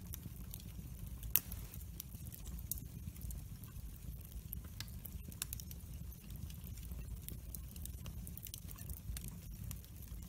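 Wood fire burning in a fireplace and crackling, with irregular sharp pops over a low steady rumble. One pop about a second and a half in is much louder than the rest.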